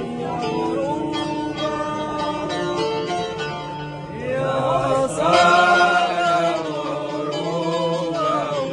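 Music: a voice chanting over instruments, with a louder, wavering sung phrase about halfway through.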